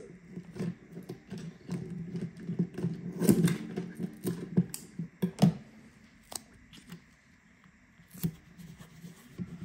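Small clicks, taps and rustles of hands working on an opened smartphone while laying down double-sided tape, busy at first and sparse near the end.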